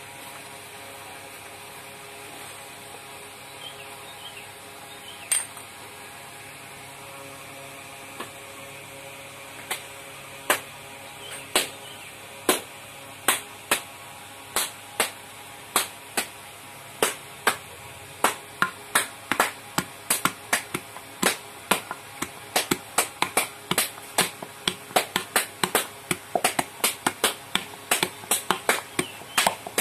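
Sharp taps and clicks of hand work on clay against a board or tool, scattered at first and growing to about two or three a second, over a steady low hum.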